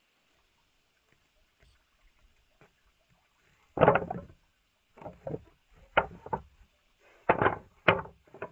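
A series of irregular knocks and thumps, about seven over the last five seconds, the loudest about four seconds in.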